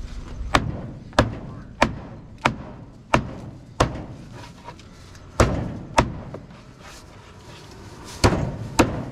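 Large knife chopping a big carp into pieces on a wooden block. Six even chops about two-thirds of a second apart, a pause, then two pairs of chops.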